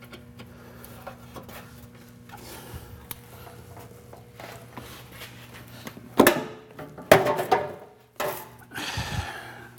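Car fender being pried and pulled loose from the body: a few faint clicks, then several sharp metal knocks and scraping from about six seconds in, as the panel breaks free of the undercoating seal.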